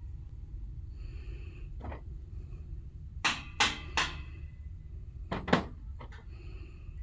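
Sharp blows of a tool striking wood while building a handmade gazebo: a quick run of three, then two more a little over a second later, with a few lighter knocks, over a steady low rumble.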